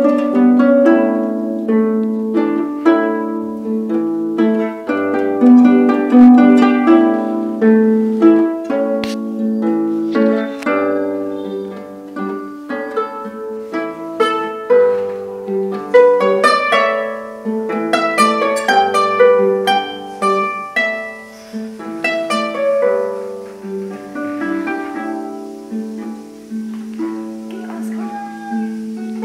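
Wooden harp played by hand: a continuous flow of plucked notes, a low bass line ringing under a higher melody, the strings left to sound on. The playing grows softer in the last third.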